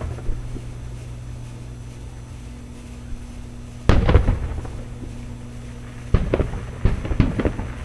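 Aerial fireworks shells bursting at a distance: one loud boom with a rumbling tail about four seconds in, then a quick run of several sharper bangs near the end. A steady low hum runs underneath.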